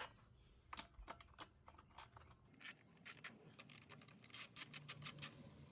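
Faint clicking of a ratchet wrench in short runs as 10 mm bolts are backed out to take a cover off a Honda mower engine.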